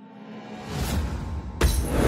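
Electronic music for a channel ident. It starts almost from silence, swells up over about a second and a half, and breaks into a sudden loud hit near the end.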